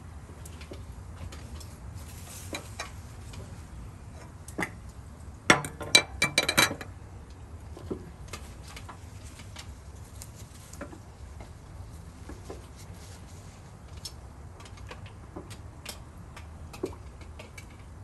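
Metal tongs clinking against a barbecue grill, with a quick run of sharp metallic clinks about five and a half seconds in. Faint scattered ticks follow throughout.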